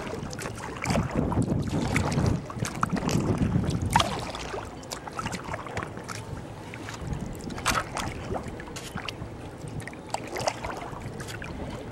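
Kayak paddling: paddle blades splashing and dripping water with each stroke, with wind on the microphone. It is louder for the first four seconds, then settles to softer swishes and scattered light drips and taps.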